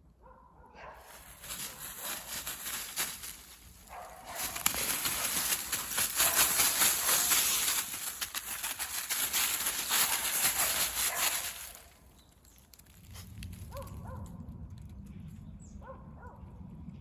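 Footsteps crunching and rustling through dry fallen leaves, a dense crackle that builds over the first few seconds and stops about twelve seconds in, after which only a quieter low rumble remains.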